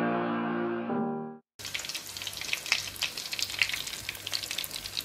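Breaded fish cakes deep-frying in bubbling oil: a steady sizzle dense with crackles and pops, starting about a second and a half in. Before it, piano music plays and stops.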